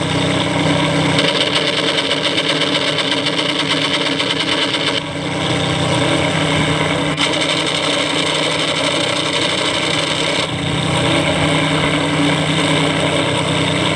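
Model Spitfire's engine running steadily with the propeller turning while the plane stands on the ground, its pitch shifting slightly a few times.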